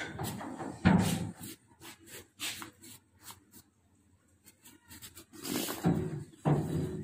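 Corrugated sheet-metal gate being unbolted and swung open: a loud metal clank about a second in, then further clattering and rattling of the metal leaves near the end.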